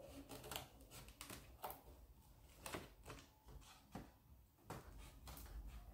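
Scissors snipping into cardboard: faint, irregular cuts and clicks.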